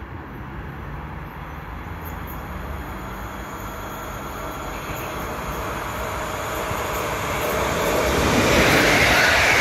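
EP07 electric locomotive hauling a train of passenger coaches on approach. Its rolling noise on the rails grows steadily louder and is loudest near the end as it draws close.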